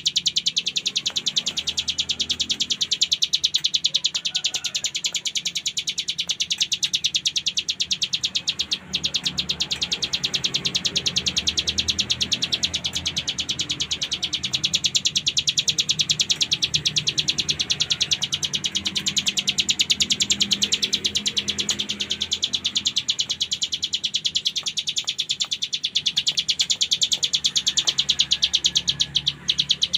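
Ciblek gunung, a mountain prinia, singing nonstop in its buzzy 'ngebren' rattle: a very fast, high trill of repeated notes, broken briefly about nine seconds in and again near the end.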